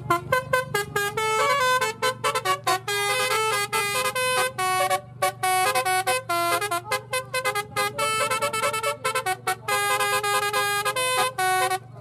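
Bus telolet horn, a Basuri-type multi-trumpet air horn, playing a fast tune of short notes stepping up and down in pitch, with a steady low hum underneath.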